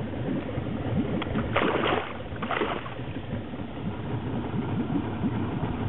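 Steady low rumble of a small boat on the water, with two short noisy bursts about two seconds in while a hooked fish fights beside the boat.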